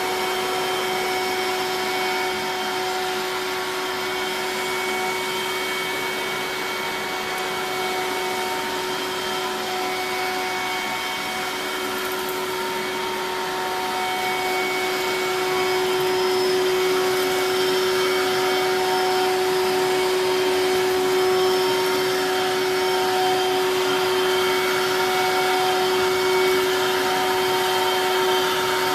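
Eureka Mighty Mite 3112A canister vacuum cleaner running steadily, its motor giving a constant high whine over the rush of air. It gets a little louder from about halfway through.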